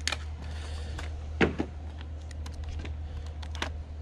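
A small electric power tool whirring briefly as it snugs a bolt, with a few sharp metallic clicks and knocks, the loudest about a second and a half in, over a steady low hum.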